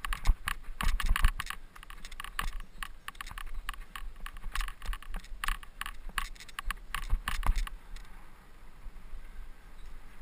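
Mountain bike rattling over rough trail: a dense, irregular clatter of chain and frame clicks that thins out near the end, over a low rumble.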